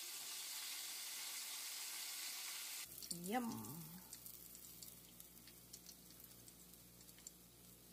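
Breaded chicken deep-frying in a pot of oil: a steady sizzle that stops abruptly about three seconds in, leaving faint crackles and a low hum.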